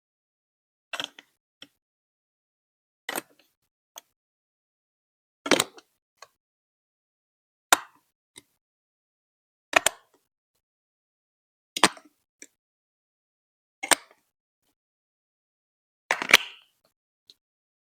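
Plastic Lego Duplo bricks being set down and pressed into place one at a time, a sharp clack about every two seconds, eight in all, some with a small tick just after.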